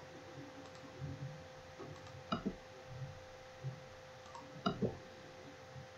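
Quiet room tone with a faint steady electrical hum, broken by a few short computer clicks in two pairs, a little before halfway and again near the end.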